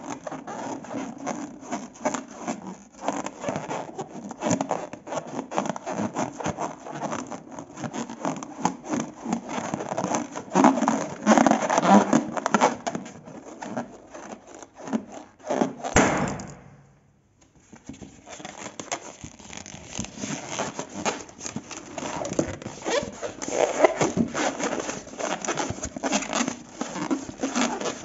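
Glossy slime being mixed and worked: a steady run of sticky clicks, pops and crackles. It stops for a moment a little past halfway, then starts again.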